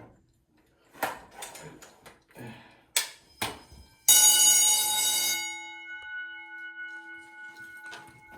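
A few sharp clicks and knocks, then about four seconds in a fire alarm bell rings loudly for about a second and a half. It stops, and its metal gong keeps ringing in several tones that slowly fade.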